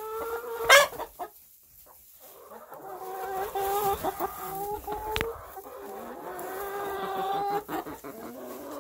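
Chickens calling: a sharp short squawk about a second in, then hens making long, drawn-out calls with one sharp knock around the middle.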